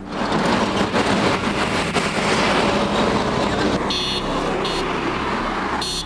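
Road traffic passing close by, a steady rush of tyres and engines. About four seconds in, a few short high-pitched tones sound.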